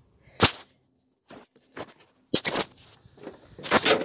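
Handling noise on a phone's microphone: short knocks and rubbing in several bursts as the phone is moved and turned. The loudest knock comes about half a second in, with further clusters near the middle and near the end.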